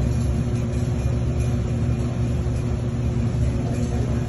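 Steady low machine rumble with a constant hum, unchanging throughout.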